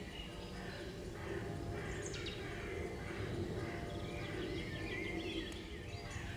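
Woodland ambience: small songbirds chirping and warbling, with a falling whistle about two seconds in, over steady low background noise.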